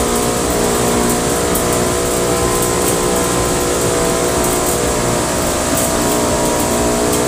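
Home-built cotton candy machine running at speed: its electric motor spinning the sugar head gives a steady hum with several held tones, over a steady hiss from the gas burner heating the head.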